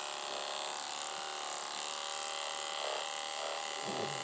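Electric dog-grooming clipper running with a steady, even buzz as it is pushed up through a miniature schnauzer's neck coat.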